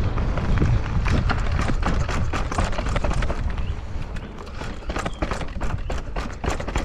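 Mountain bike clattering over rough trail, with quick irregular knocks and rattles from the bike over a steady low rumble.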